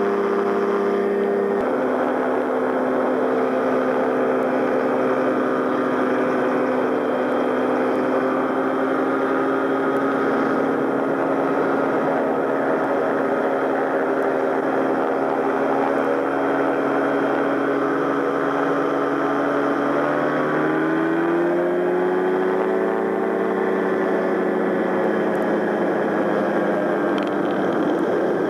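Gyrocopter's pusher engine running at high power, heard onboard over a haze of wind and rotor noise, during the takeoff run and climb. Its pitch steps down about one and a half seconds in, holds steady, and rises smoothly about twenty seconds in.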